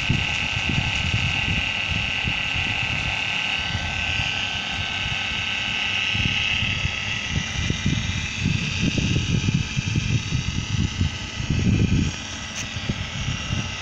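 LUST FIP servo motor running on test, a steady whine made of several high tones that shifts slightly up in pitch about four seconds in, over an irregular low rumble.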